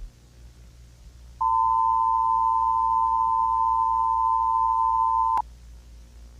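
Emergency alert attention tone: a single steady beep-like tone held for about four seconds over a faint hum, ending abruptly with a click.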